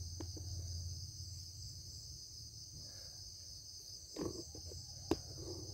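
Steady high-pitched chirring of crickets, with a brief rustle about four seconds in and a single sharp knock about a second later.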